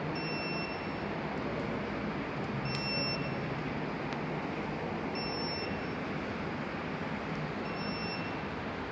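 A model rain alarm's electronic buzzer beeping: a single high tone about 0.8 s long, repeating about every 2.5 s over a steady hiss. It signals that the rain sensor has been wetted.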